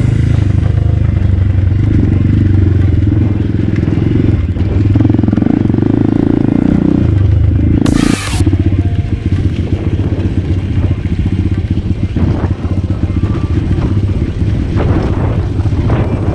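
ATV engine running under way, with a short burst of noise about eight seconds in.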